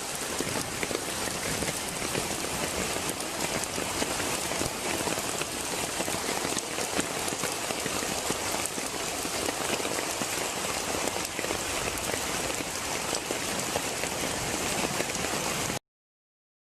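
Heavy rain and floodwater flowing, a steady even hiss of water that cuts off suddenly about a second before the end.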